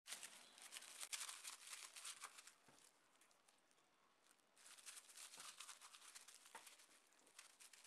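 Faint crackling and rustling of gloved hands handling a raw whole chicken on a plastic cutting board, in two spells with a lull from about three to four and a half seconds in.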